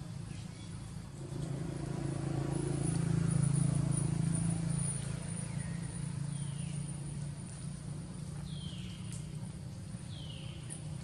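Low engine hum of a passing motor vehicle, swelling to its loudest a few seconds in and then easing off. In the second half come four short, high calls, each falling in pitch, over a steady high whine.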